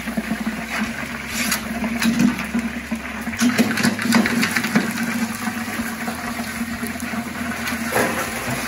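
Hot frying oil bubbling and sizzling in a Broaster pressure fryer's cooking well as a freshly lifted basket of fried chicken drains over it, with a few knocks of the metal basket between about one and a half and four seconds in.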